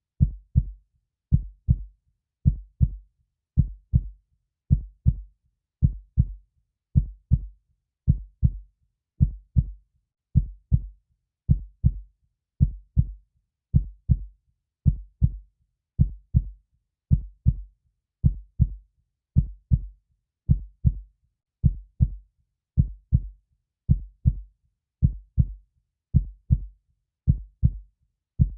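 Human heartbeat sound effect: a steady, slow lub-dub, each beat a low double thump with the second thump softer, repeating a little more than once a second.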